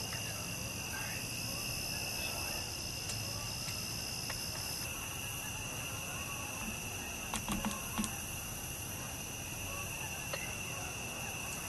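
Steady chorus of insects singing in several constant high pitches, one of which stops about five seconds in. A few soft clicks come about halfway through.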